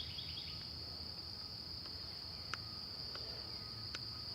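Steady, high-pitched chorus of insects such as crickets, holding one unbroken note, with a few faint sharp clicks in the second half.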